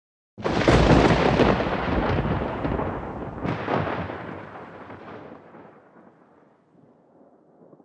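Intro sound effect: a deep boom about half a second in and a second one about three seconds later, each dying away slowly over several seconds.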